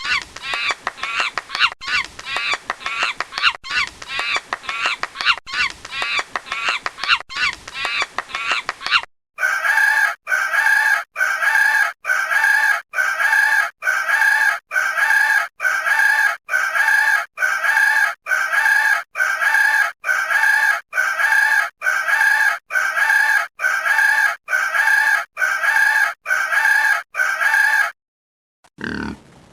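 A run of rapid, pitch-bending animal calls for about nine seconds, then, after a brief gap, a chicken call repeated at an even pace, about one and a half a second, until it stops shortly before the end.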